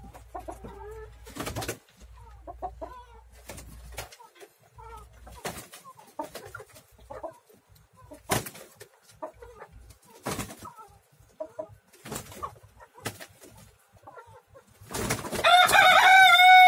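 Roosters fighting: scattered sharp thumps of wing beats and scuffling with soft clucking. Near the end a rooster crows loudly, one long call that rises and then falls.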